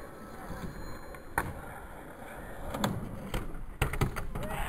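Skateboard wheels rolling on tarmac, a low rumble that grows louder as the board comes close, with several sharp clacks of the board near the end.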